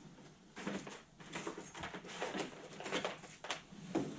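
Packaging being handled while a power cord is taken out: a string of irregular rustles and light knocks, the loudest about three and a half and four seconds in.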